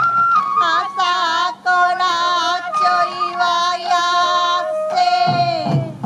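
A solo singer sings a long phrase of a Japanese folk song with heavy vibrato, accompanying the sansa dance, while the drumming drops away. A bamboo flute line is heard at the start and comes back near the end, as the taiko beats return.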